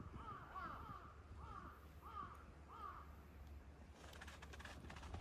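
A crow cawing in a quick series of about seven short calls over the first three seconds, then a brief faint rustle about four seconds in.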